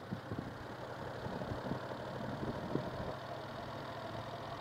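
Motorcycle engine running steadily at low revs as the bike rolls slowly in traffic, a low hum with a few soft knocks.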